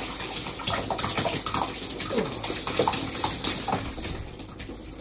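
Thick, lumpy gunge of hot chocolate mixed with porridge oats being poured over a person's head, slopping and splattering wetly onto the shoulders and the shower floor, with many small splats.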